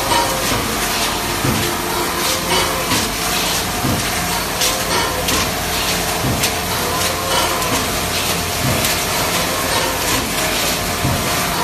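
Plastic thermoforming line running with its inline crusher grinding the perforated sheet scrap. A steady mechanical hum and hiss carry frequent irregular clacks and knocks.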